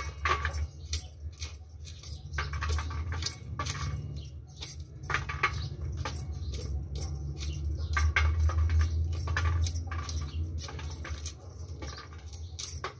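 Corn kernels being thumbed off a cob and dropping onto a steel plate: irregular light clicks and patters, over a steady low hum.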